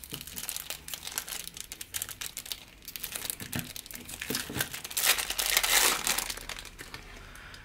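Thin plastic wrapping crinkling and tearing as it is pulled off a new speedcube, a dense run of crackles that is loudest about five seconds in.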